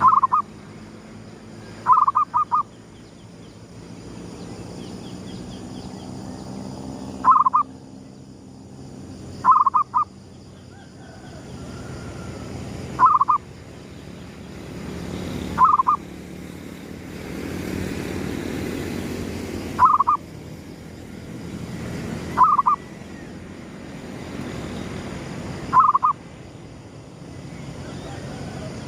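Zebra dove (perkutut) cooing in short bursts of two or three quick notes, nine times, every two to four seconds, over a steady low rumble.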